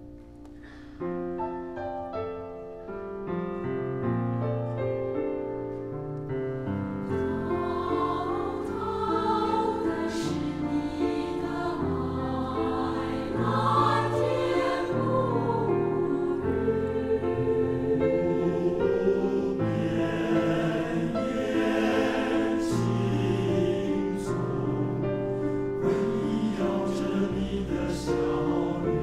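Mixed choir of women and men singing a slow Mandarin song to grand piano accompaniment. The piano plays alone at first, and the singing grows fuller about a second in.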